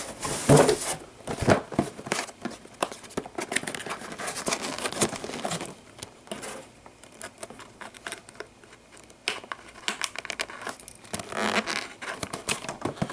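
Packaging being handled while an RC transmitter is unpacked: crinkling plastic with irregular light clicks and taps. It goes quieter for a few seconds in the middle, then picks up again near the end.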